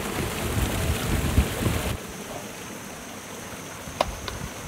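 Wind gusting on the microphone with a low rumble, cutting off suddenly about two seconds in. A quieter steady outdoor hiss follows, with a faint high steady tone and two light clicks near the end.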